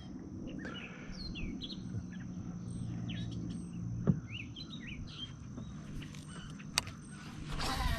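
Birds chirping in short, scattered calls over a faint low hum, with two sharp clicks, one about four seconds in and one near seven seconds.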